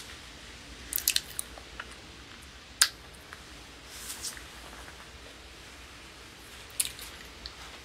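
A few short clicks and rustles, handling noise from clothing or the phone, over a low steady hum. The sharpest click comes about three seconds in.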